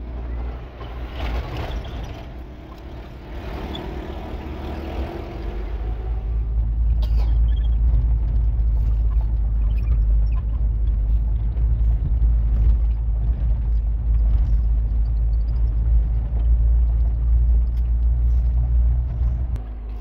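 Steady low rumble of a vehicle's engine and tyres, heard from inside the cab on a rough dirt track, with occasional knocks and rattles from bumps. Over the first few seconds the rushing noise of a passing pickup truck is mixed in, after which the cab rumble grows louder and holds steady.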